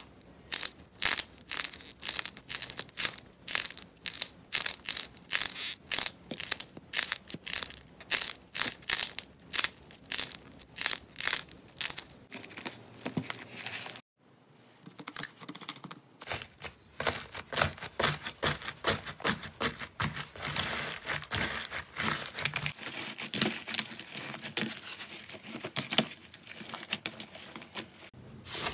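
Slime handling sounds: crisp crackling crunches about twice a second as hands squeeze and peel a shiny film. A short pause about 14 seconds in, broken by one sharp click, gives way to dense, continuous crunchy crackling of foam-bead slime (floam) being pressed.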